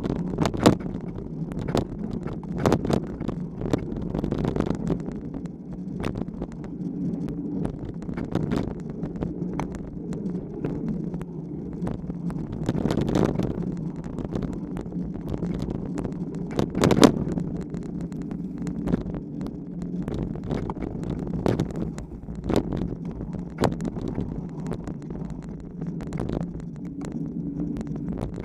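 Mountain bike rolling along a dirt singletrack, picked up by a camera mounted right by the front tyre: a steady rolling noise from the knobby tyre and bike, broken by frequent sharp rattles and knocks as it goes over bumps. The loudest knock comes about seventeen seconds in.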